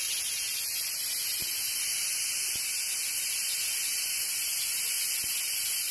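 Instant Pot quick-release valve venting steam: a loud, steady high-pitched hiss as pressure is let off after pressure cooking.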